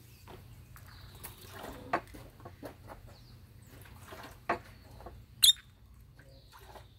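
Footsteps scuffing on a gravel path as a person walks away and stops, with a few scattered knocks. A single sharp, high chirp stands out about five and a half seconds in, over faint high bird calls.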